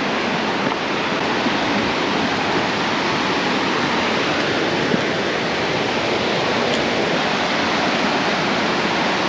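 Yosemite Falls' water pouring down onto the rocks: a steady, even rush of noise.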